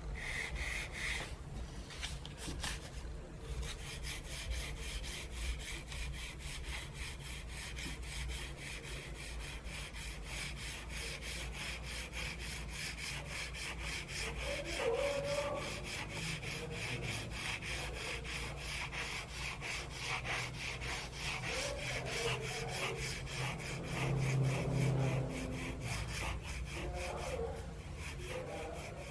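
Charcoal scratching and rubbing across paper in a quick, even rhythm of strokes.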